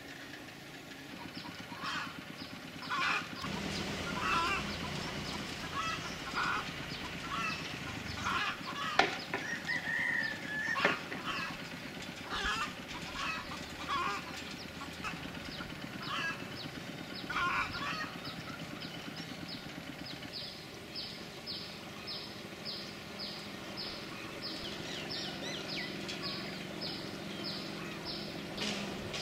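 Chickens clucking, with short calls scattered through the first half. In the second half a short high call repeats steadily, about twice a second.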